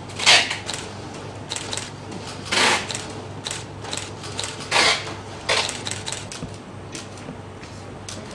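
Handling noises: a few short rustling swishes among light scattered clicks.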